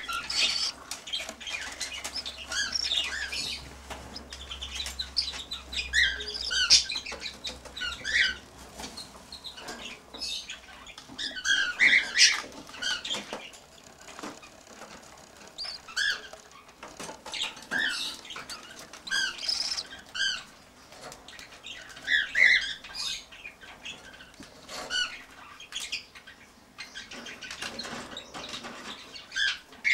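Cockatiel chick calling in short repeated chirps, coming in clusters every second or two, with some clicks between.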